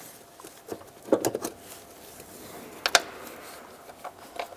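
Light metallic clicks and taps of hinge bolts being handled and started by hand into a truck door hinge. There is a short cluster of clicks about a second in and one sharper click near three seconds.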